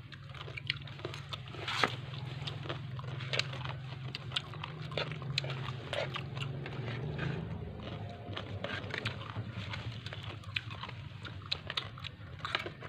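Metal spoons and forks tossing a wet shredded salad in a plastic basin: irregular clinks and scrapes of metal on plastic with wet squelching, over a low steady hum that fades about halfway through.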